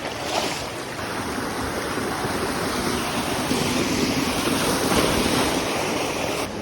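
Steady rush of creek water tumbling over rocks, swelling slightly partway through.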